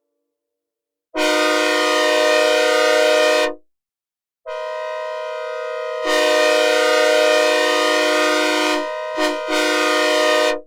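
Synthesized recreation of a Nathan K5L five-chime locomotive air horn sounding a chord in a long, long, short, long pattern, the grade-crossing signal. The second blast starts with only its upper notes, and the lower notes join about a second and a half later.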